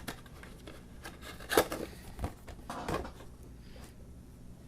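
Soft handling noises as the contents of a cardboard miniatures box are taken out: a few light knocks and some rubbing of cardboard and plastic.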